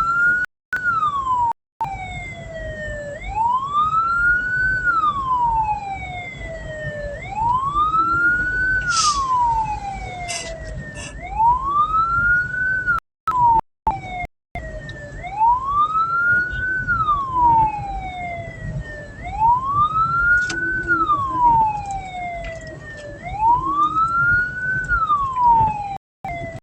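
Hearse siren wailing in a slow, repeating rise and fall, one cycle about every four seconds, over the low rumble of the moving vehicle. The sound drops out briefly a few times.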